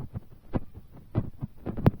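Large raindrops landing close to the microphone: irregular dull thuds, several a second and uneven in strength, with one sharper, louder tap near the end.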